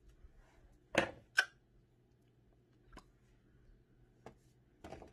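Two sharp clicks about half a second apart, then a few fainter ticks and taps, from small hard objects such as a comb or product container being handled.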